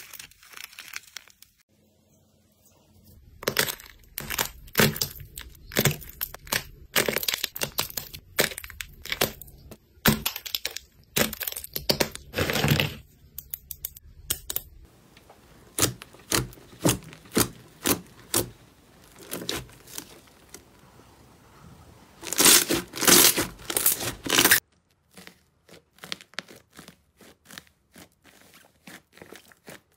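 Crunchy slime squeezed and broken by hand: its hardened outer crust cracks and snaps in many sharp crackles and crunches, in quick runs with short pauses. Near the end the crackling stops and only faint soft clicks remain.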